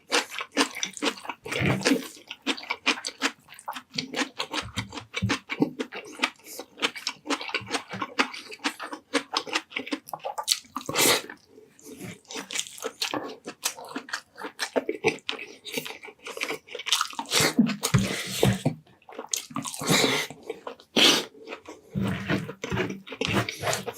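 Close-miked eating sounds: wet chewing and mouth smacks, a rapid, irregular run of short clicks.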